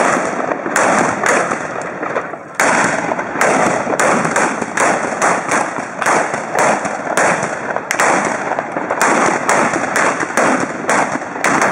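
Trabucs (Catalan blunderbusses) fired in quick succession down a long line of shooters. The blank black-powder shots come as a ragged, unbroken string of loud bangs, about two or three a second.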